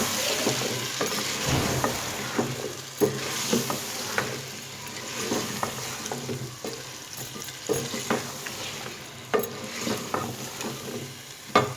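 A spoon stirring chicken, cauliflower and potatoes frying in oil in a pan: a steady sizzle with scrapes and knocks of the spoon against the pan, the loudest knock near the end.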